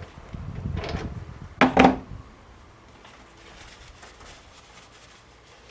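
Metal handling at a lathe's three-jaw chuck as the turned part is freed and lifted out: a low rattle and a couple of knocks, then one sharp, ringing metal clank just under two seconds in.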